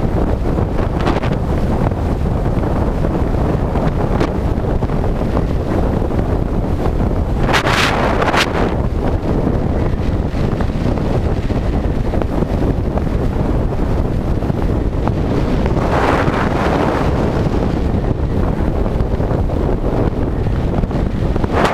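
Steady wind buffeting the microphone of a moving motorcycle at road speed. A couple of louder bursts come about eight seconds in and again around sixteen seconds.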